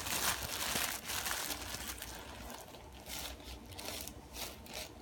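Crinkling and rustling of plastic being handled, loudest in the first second and a half, then fainter scattered rustles, as a cup is pulled out of its packaging.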